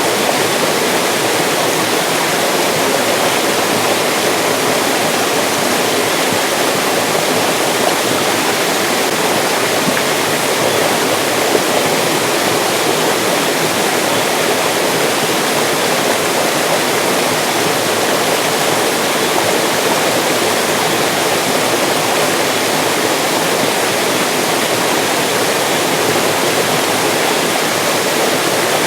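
Mountain stream rushing steadily over rocks: a continuous, even water noise with no pauses.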